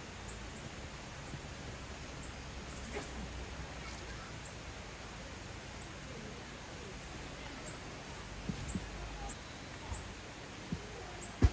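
Small birds giving short, high chirps, repeated irregularly over a steady background, with a few dull knocks, the loudest just before the end.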